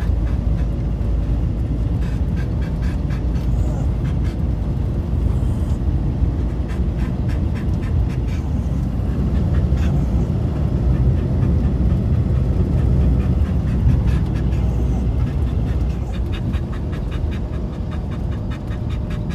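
Steady low rumble of a van driving over packed snow, heard inside the cab, with a dog panting.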